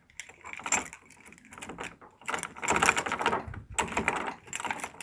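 Metal clicking and rattling of a key being turned and jiggled in a uPVC door's euro cylinder lock, working the cam round so the stuck cylinder can be pulled out. The clicking is busiest in the second half.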